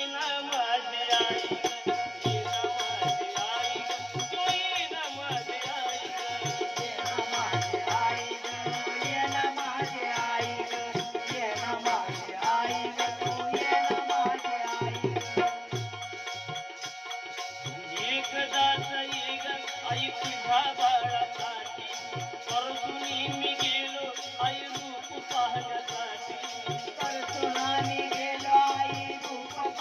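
Instrumental interlude of a Marathi devotional song: a held, sustained melody over a steady low drum beat and fast, high rattling percussion, with no singing.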